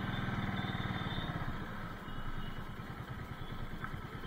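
Bajaj Avenger's single-cylinder engine running steadily as the motorcycle rolls along at low speed.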